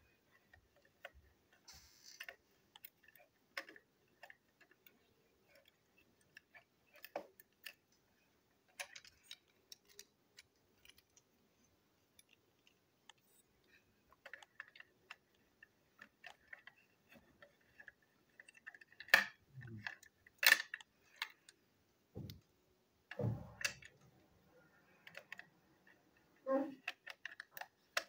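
Scattered small clicks and taps of a toy locomotive's plastic body and metal-axled wheelsets being handled and fitted together by hand, with a few louder knocks in the last third.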